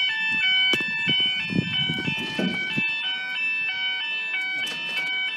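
UK level crossing warning alarm sounding, steady tones switching rapidly back and forth in pitch.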